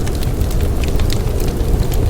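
Wood fire crackling, with sharp pops scattered irregularly a few per second, over a steady low rumble of wind from a blizzard.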